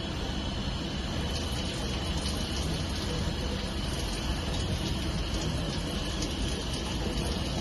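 CNC machining centre running an M8 rigid peck-tapping cut with flood coolant on: a steady splashing hiss of coolant over a low machine hum and a faint steady high whine.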